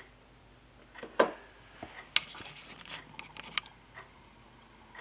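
Handling noise: a few sharp clicks and knocks with light rubbing in between, the loudest about a second in.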